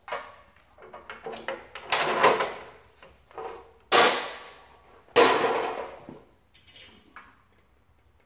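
Clunks and knocks from a metal chop saw being lifted off a workbench and a piece of steel tubing and other gear being set down. There are about four separate knocks, each ringing briefly; the loudest come about four and five seconds in.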